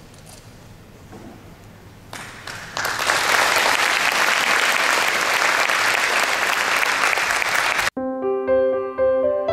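Audience applause that builds up about two seconds in and carries on strongly. Near the end it cuts off abruptly, and piano music begins.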